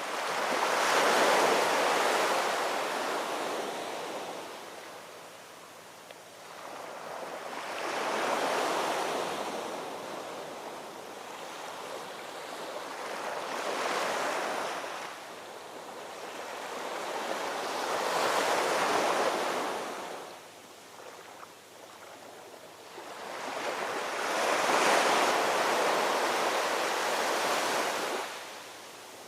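Ocean waves breaking on a shore: five surges of surf, about five to six seconds apart, each swelling up and washing away.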